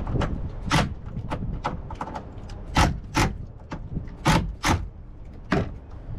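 A string of sharp, irregular knocks and clicks of hard tools and wood blocks being handled and set against each other, about eight or ten of them, over a low rumble.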